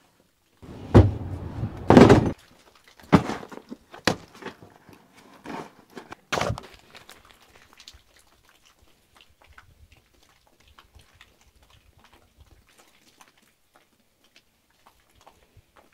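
Handling sounds from a plastic truck-bed toolbox and the bags taken out of it: two loud knocks and scrapes about one and two seconds in, then a few sharper knocks and rustles. These fade to faint scattered rustling in the second half.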